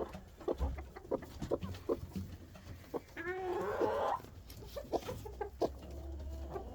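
Domestic hens clucking, with one longer wavering call about three seconds in. Scattered short taps and scratches run throughout.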